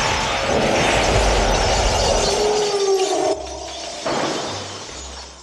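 Film sound effects of proton-pack beams firing amid crashing and smashing of furniture and glass, a loud and dense din. About three seconds in it drops off abruptly, and a last duller crash fades away.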